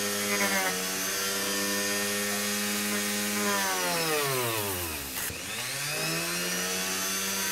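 Dremel rotary tool with a sanding drum running at a steady pitch while it sands EVA foam. About three and a half seconds in, its pitch falls away until the motor nearly stops, around five seconds in. It then climbs back up to full speed.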